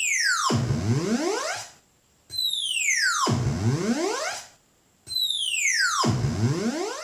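Future Sound Systems Brunswick synthesizer giving a rich, many-overtoned tone that swoops: a quick dive in pitch followed by a slower climb back up. This repeats three times, with a short break of silence between each sweep.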